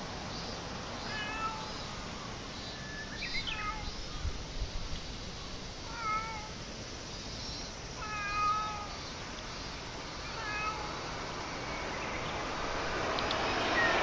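A cat meowing: about five short, high meows a couple of seconds apart.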